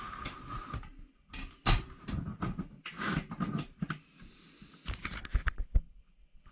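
Handling noise on a workbench: a run of irregular clicks, knocks and rustles, with the sharpest knocks about a second and a half in and again near the end.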